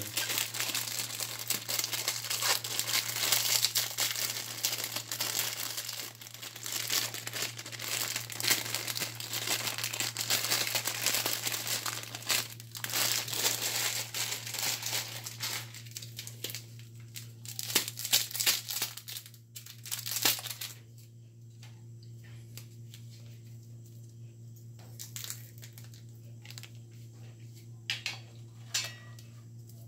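Plastic and foil sachets crinkling as they are handled and opened, dense and continuous for about the first half, then thinning to scattered crinkles with a few isolated ones near the end.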